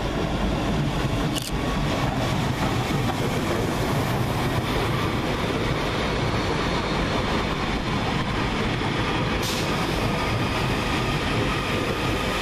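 Two coupled Northern Class 331 electric multiple units running past the platform: a steady rumble of wheels on rail and running gear. Two brief sharp clicks come about a second and a half in and again about nine and a half seconds in.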